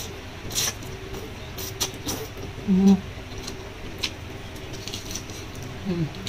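Close-up eating sounds: a wet slurp of instant noodles, then biting and chewing a roast duck leg, with scattered wet mouth clicks and smacks. A short hummed "mm" comes about three seconds in.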